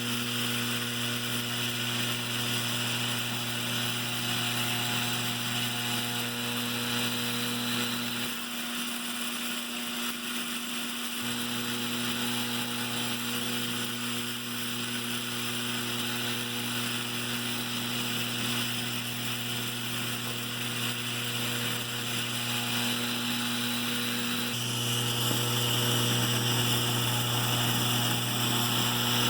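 Lionel 3656 operating cattle car stockyard's vibrator mechanism buzzing steadily, with a low electric hum, as it shakes the cattle figures along. The buzz drops out for a couple of seconds about eight seconds in, then resumes, and grows louder near the end.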